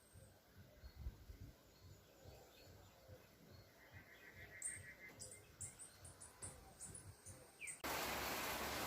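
Faint bird calls: a short pulsed trill about halfway through, then a string of brief, very high chirps. Near the end the sound cuts abruptly to a louder steady hiss.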